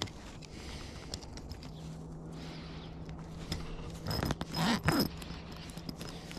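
Small metallic clicks and scrapes of multi-tool pliers squeezing a rooftop tent's zipper slider so that it grips the track again, then the zipper rasping along its track in two short pulls a little past the middle.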